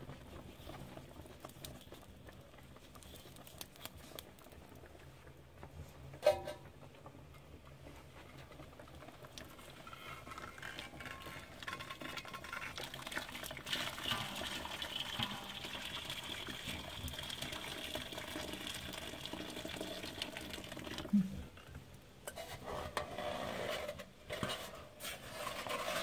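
Water poured from a stainless-steel kettle into a steaming cast-iron pot of braising stuffed ribs, topping up the cooking liquid: a steady pour lasting about ten seconds in the middle. The pour ends with a sharp knock, followed by some metal clatter.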